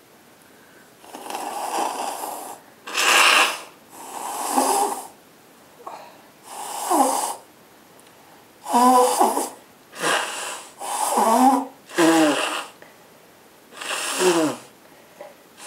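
A run of about ten short, loud bursts of sneezing and nose blowing into a handkerchief. Several bursts carry a voiced sound that falls in pitch.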